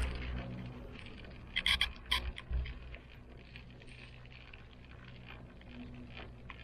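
Ride inside a moving gondola cable car cabin: a steady low hum, with a short cluster of sharp creaking clicks from the cabin about two seconds in, then faint ticking.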